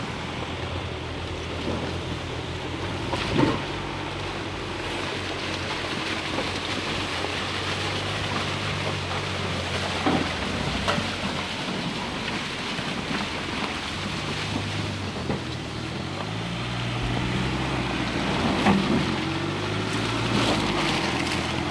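Skoda Kodiaq Scout SUV crawling off-road through wet mud: its engine running at low revs over a steady hiss and slosh of tyres in the mud. A few sharp knocks are heard, and the engine note shifts up a little about two-thirds of the way through.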